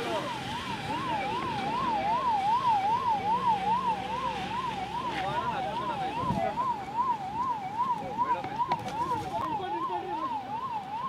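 Convoy escort car's electronic siren in a fast yelp, its pitch sweeping up and down about three times a second.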